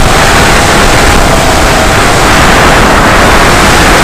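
Onboard audio of an FPV quadcopter in flight: loud, steady rushing motor and wind noise, heavily distorted.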